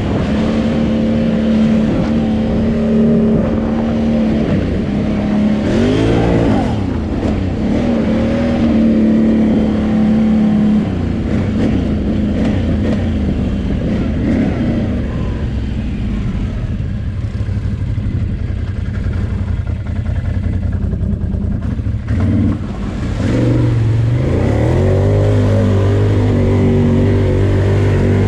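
Can-Am Renegade 800 ATV's V-twin engine running and revving as it is ridden, its pitch rising and falling about six seconds in and again near the end, when it drives into a pond under load.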